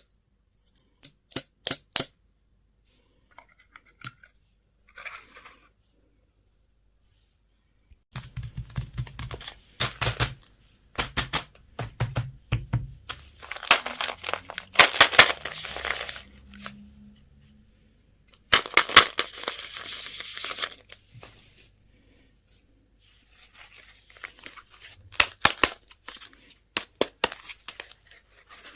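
Candy and toy packaging being torn open and crinkled by hand in several bouts of a second or two each, after a few sharp clicks at the start.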